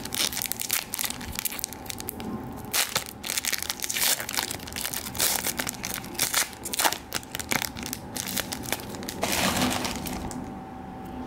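Foil wrapper of a Panini Chronicles trading-card pack being crinkled and torn open by hand: a dense run of crackles and rips that dies down shortly before the end.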